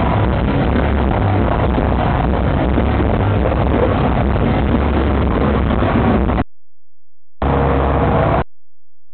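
Nu-metal song played back with bad, distorted sound, muffled and cut off in the highs, with a heavy low end. It drops out suddenly about six and a half seconds in, comes back for about a second, then cuts out again.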